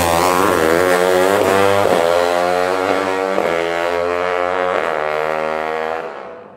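KTM drag bike's engine revving, its pitch repeatedly dipping and climbing again every second or so, then fading out near the end.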